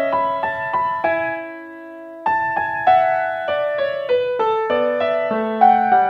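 Background piano music: a melody of struck notes that stops on a fading chord about a second in, then picks up again just after two seconds.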